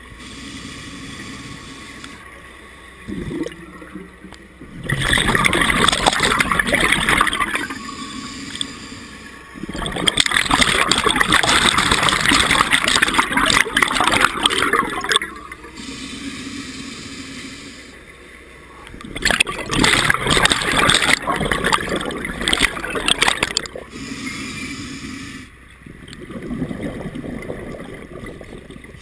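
Scuba diver breathing through a regulator underwater: three long exhalations of rushing, gurgling bubbles, about five, ten and nineteen seconds in, with quieter breathing sounds between.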